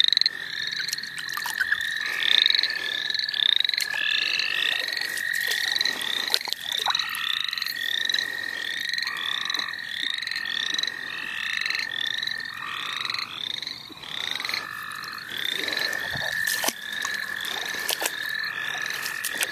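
Night-time spring frog chorus: a long, steady trill from American toads, with many short rising calls from smaller frogs repeating several times a second over it. A few sharp knocks come through as well.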